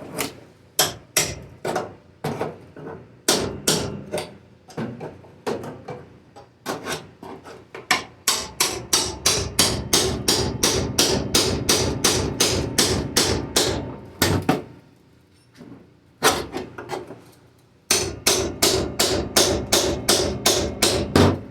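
Hammer blows on the steel body panel of a 1980 Jeep CJ7, beating at the spot welds to break the panel free. The strikes are scattered at first, then come in fast runs of several a second with a ringing metal note, broken by a pause of a few seconds before a last run.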